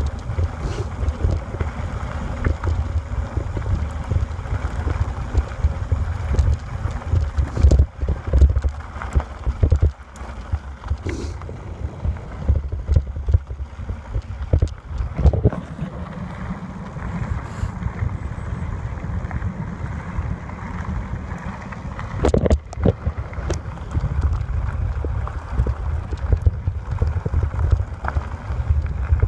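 Wind buffeting the microphone in gusts, a rough low rumble over a lighter hiss, with scattered knocks and rattles.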